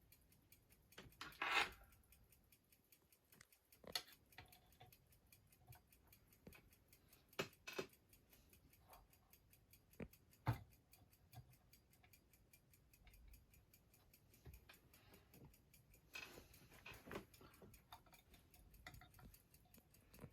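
Faint, steady ticking of a clock, broken by scattered clicks and knocks of small clock parts being handled and fitted.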